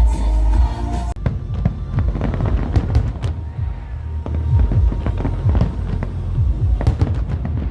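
A background pop song cuts off about a second in, giving way to a fireworks display: repeated deep booms with sharp cracks and crackling in between, at an uneven pace.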